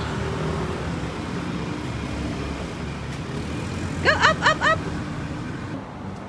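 Street traffic noise, a steady low rumble of passing vehicles. About four seconds in, four quick high-pitched rising calls sound over it. Near the end it gives way to quieter indoor room tone.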